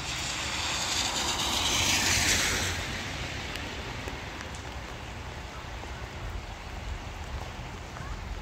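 Light rain pattering steadily, with a car passing on the wet street: its tyre hiss swells over the first two seconds and fades away by about three seconds in.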